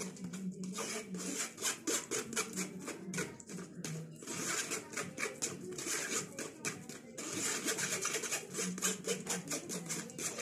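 A spoon scraping and pressing cooked tomato pulp through a metal mesh sieve, a rapid run of wet rasping strokes that thickens into steady rubbing for a couple of stretches, to force the sauce out and leave the skins and seeds behind.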